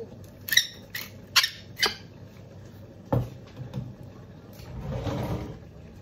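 A salt shaker shaken over a glass salad bowl: three sharp shakes in the first two seconds. Then a thump about three seconds in, and a low noise lasting about a second near the end.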